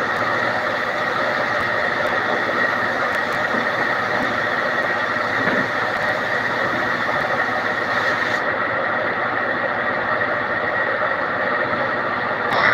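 Compressed-air spray gun spraying PU clear sealer: a steady hissing rush of air with a constant high whine in it. A brief louder burst near the end.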